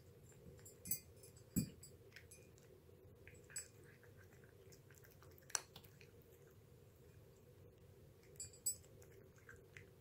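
A cat eating from a bowl: faint, irregular chewing clicks, about half a dozen of them sharper, over a low steady hum.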